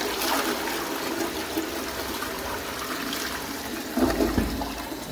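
Ceramic toilet flushing: water rushes and swirls down the bowl's drain, growing louder and deeper about four seconds in.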